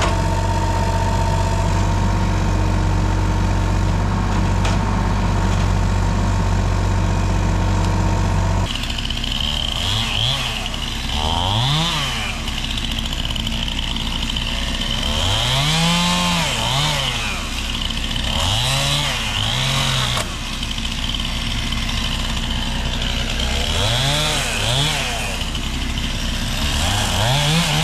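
Kubota mini excavator's diesel engine running at a steady speed. About nine seconds in this gives way to a chainsaw cutting a pine trunk, revving up and back down again and again.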